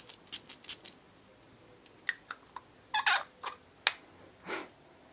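Avon Perceive Silk glass perfume bottle and its cap being handled with small clicks, then a short hiss of its spray atomiser about three seconds in. A second, breathier hiss follows near the end.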